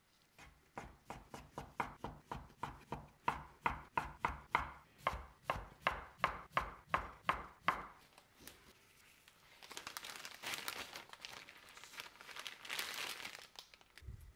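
Chef's knife chopping through folded noodle dough onto a bamboo cutting board, a steady run of cuts at about four a second for some seven seconds. Then a soft rustling as gloved hands pull apart and fluff the freshly cut noodle strips.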